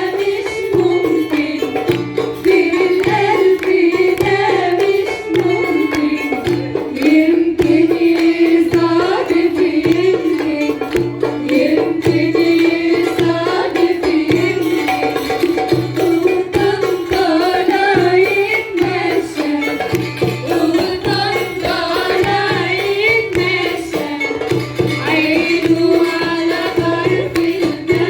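Live Port Said simsimiyya folk music: a plucked simsimiyya lyre melody over a steady, even hand-drum beat.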